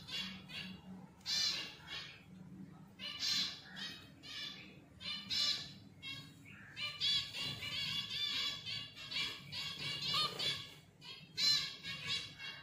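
Zebra finches calling: short repeated calls every second or two, then coming quickly in a run of calls in the second half.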